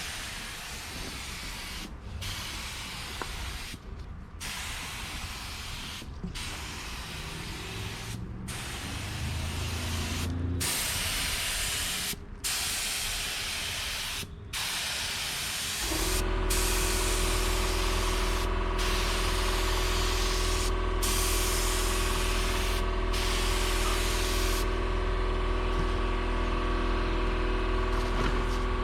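Compressed-air spray gun hissing in passes, with short breaks about every two seconds as the trigger is let go. About halfway through, a loud steady machine hum joins and runs on under the spraying.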